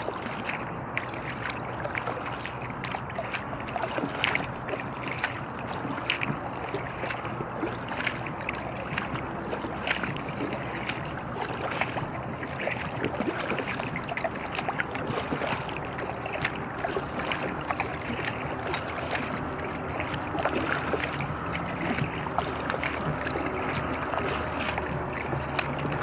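Paddling an inflatable kayak: irregular small splashes of the paddle and water lapping at the hull over a steady low rush of noise.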